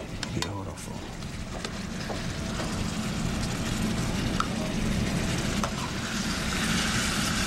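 Mushrooms sizzling in a frying pan, a steady hiss that grows louder near the end, with a few light clicks of a metal utensil.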